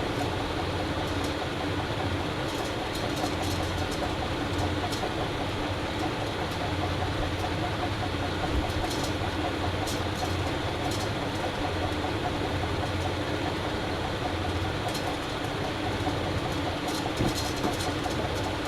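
Dayton Leading Edge industrial ceiling fan running steadily on high speed: an even rush of moving air over a low motor hum.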